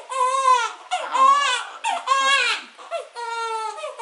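Newborn baby crying: high-pitched wails, each under a second long, with short breaths between them.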